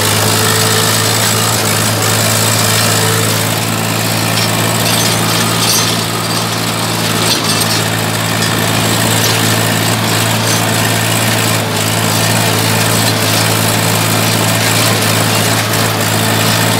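Swaraj 855 tractor's three-cylinder diesel engine running steadily under load while pulling a cultivator through soil.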